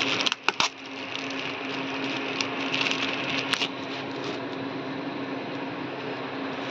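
Clear plastic wrapping crinkling and rustling as hands pull it off a bass tube speaker, with a few sharp crackles in the first second. A steady low hum runs underneath.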